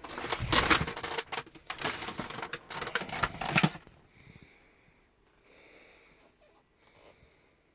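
Shark Lift-Away NV601UKT upright vacuum cleaner running, a loud irregular rush of air and crackle, which stops suddenly about three and a half seconds in. Only faint noise follows.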